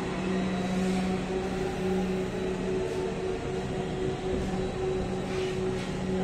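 Steady hum inside a Dhaka Metro Rail car: a low drone with two constant tones over a soft even rushing noise.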